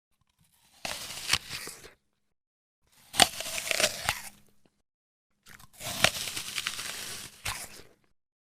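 Someone chewing crunchy food, close up: three bouts of crisp crunching, each a second or two long, with silence between.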